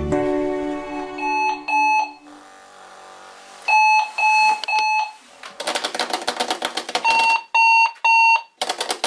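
Digital alarm clock beeping: short electronic beeps on one steady pitch, first two, then three, then three more. Stretches of fast, dense clicking come between the later groups of beeps.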